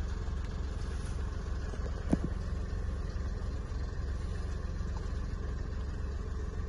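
Toyota Yaris engine idling steadily, a low even rumble, with one brief sharp sound about two seconds in.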